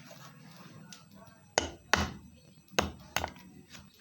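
A whole nutmeg being struck hard to break it into pieces: four sharp knocks in two pairs, the first about one and a half seconds in, followed by a lighter knock near the end.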